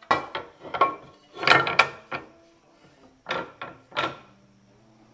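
Irregular knocks, clunks and scrapes of jointer parts being handled and fitted during assembly, about nine in three clusters, loudest around a second and a half in. Soft background music underneath.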